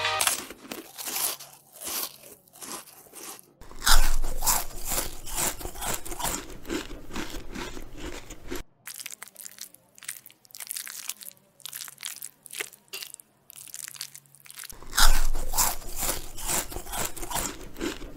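Crunching and chewing of crisp food close to the microphone, a rapid run of crackling crunches that is loudest in two stretches starting about four seconds in and about fifteen seconds in.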